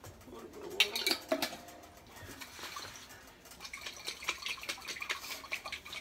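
Kitchen clatter from handling utensils and containers: a few sharp knocks about a second in, then a run of quick clicking rattles in the second half.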